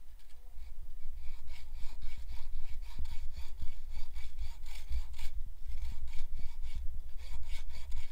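Hand bow saw cutting wood in quick, even back-and-forth strokes, starting about a second in.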